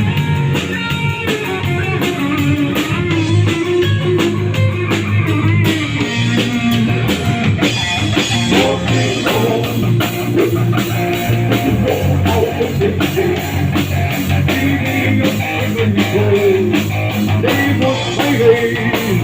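Rock band playing an instrumental passage between sung lines: guitar over bass and a drum kit.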